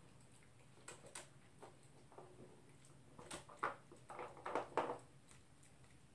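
Poodle eating its food: a string of short, irregular crunches and clicks, thickest between about three and five seconds in.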